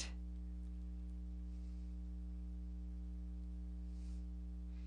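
Steady low electrical hum with a ladder of evenly spaced overtones: mains hum in the recording, with nothing else standing out.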